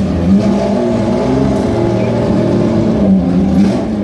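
BMW M1 ProCar's 3.5-litre straight-six racing engine idling loudly and steadily, its pitch wavering slightly up and down.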